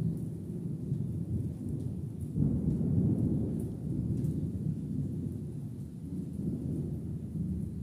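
Distant thunder rolling as a low, continuous rumble that swells about two and a half seconds in and slowly eases off.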